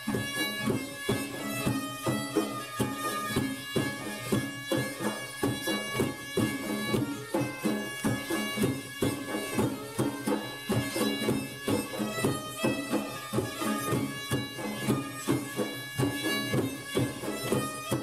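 Background music in a traditional folk style: a sustained wind-instrument melody over a steady beat.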